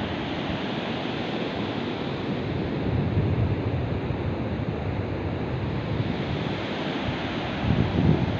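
Surf breaking and washing up a sandy beach, a steady rush of waves, with gusts of wind buffeting the microphone about three seconds in and again near the end.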